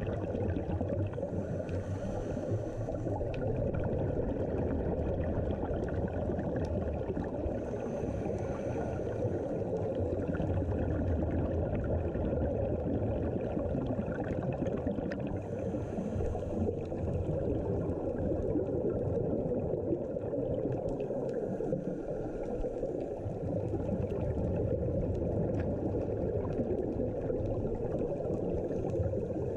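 Muffled underwater noise picked up through a sealed GoPro dive housing: a steady low rumble, with short hissing swells every several seconds, typical of scuba divers' exhaled regulator bubbles.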